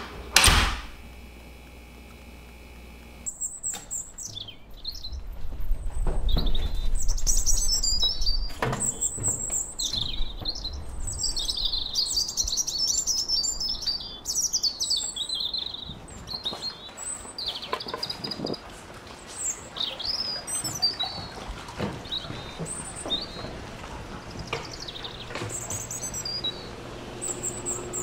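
Two sharp thuds right at the start, then a few seconds later a dense chorus of many birds chirping and calling, which goes on to the end. A low rumble sits underneath for a few seconds partway through.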